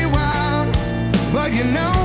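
Background music: a song with a sliding melody line over held bass notes.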